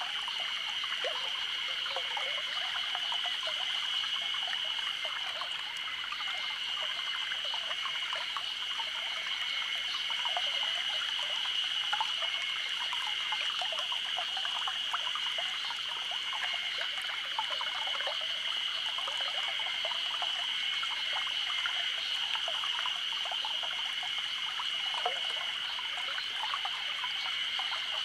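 A small stream babbling and trickling steadily, with cicadas singing a continuous high-pitched drone over it.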